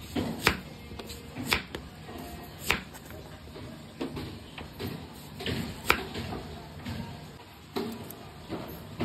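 Sharp, irregular knocks and clatters of kitchen prep work, such as a knife striking a chopping board or utensils against a bowl, about one every second or two, over soft background music.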